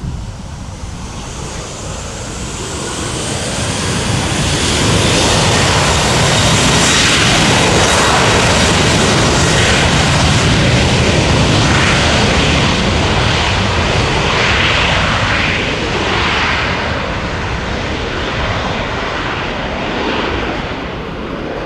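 Boeing 737-800's two CFM56-7B turbofan engines at takeoff thrust during the takeoff roll. The roar builds to a peak as the jet passes close by, then slowly fades as it speeds away down the runway.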